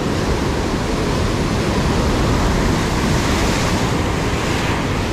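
Heavy sea surf breaking and churning against shoreline rocks: a loud, steady wash of waves that swells a little midway.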